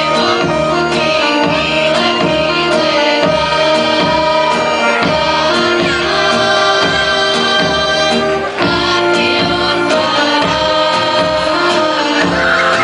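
Southern Serbian folk music in the Vranje style: a group of female voices singing together over instrumental accompaniment with a steady beat.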